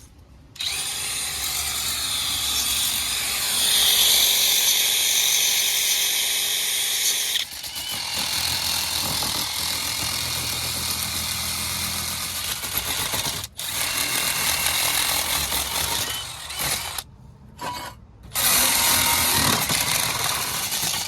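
Power drill spinning a wire brush against rusted gas-furnace parts, scouring off years of rust in long steady runs. It pauses briefly near the start and twice more late on.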